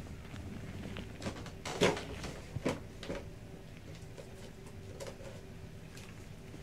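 Handling noise: a few short knocks and bumps, the loudest a little under two seconds in, over a faint steady hum.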